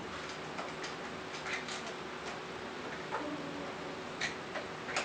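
Screwdriver clicking and ticking as it tightens screws into the plastic casing of an Orpat basic telephone, with the casing handled and knocked, in scattered small clicks and a few louder ones near the end.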